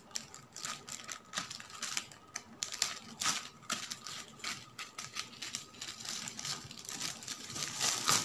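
Scissors cutting through clear plastic wrapping, the plastic crinkling as it is cut and handled, in a run of small, quick clicks and rustles.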